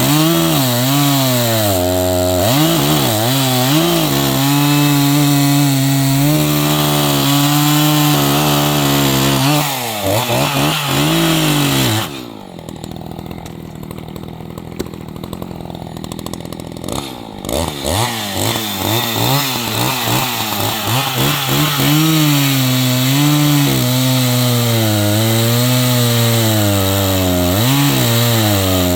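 Echo CS-590 Timber Wolf two-stroke chainsaw cutting logs, its engine pitch sagging and recovering as the chain bites. About twelve seconds in it drops back to idle for roughly five seconds, then revs up and cuts again.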